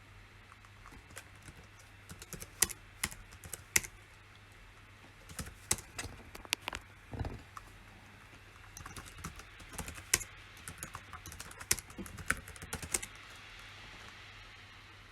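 Typing on a computer keyboard in three bursts of key clicks with short pauses between, over a steady low hum.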